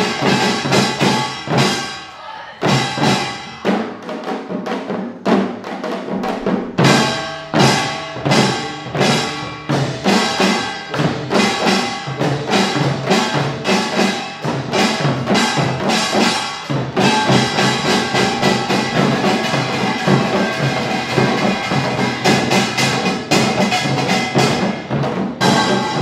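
Korean utdari samul nori percussion: kkwaenggwari small brass gongs clanging in a fast rhythm over janggu hourglass drums and buk barrel drums. The beat thins out a couple of seconds in, then builds back into a dense, driving pulse.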